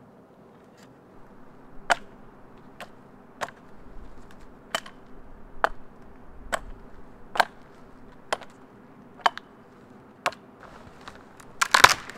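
Hatchet chopping the dry side branches off a thin dead pole: about ten sharp cracks roughly a second apart, then a quick flurry of louder cracks near the end.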